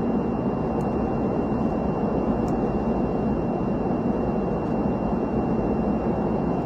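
Steady cabin noise of an aircraft in flight, an even rumbling rush with a faint constant high tone above it.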